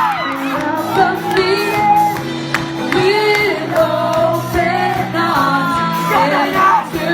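Band music with voices singing over a steady instrumental backing, and some shouts from the audience.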